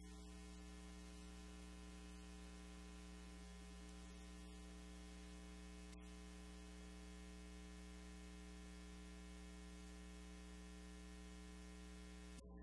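Near silence with a steady electrical mains hum and faint hiss.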